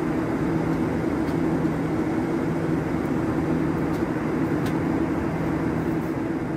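Cabin noise of a Boeing 737 in flight: a steady drone of the jet engines and rushing air, with a low hum underneath.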